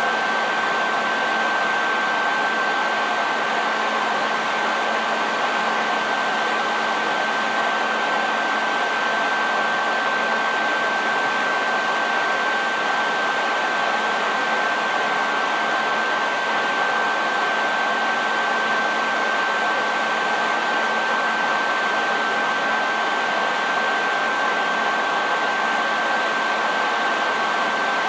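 Electric hair dryer running steadily: a constant rush of air with a high steady whine from its motor and fan.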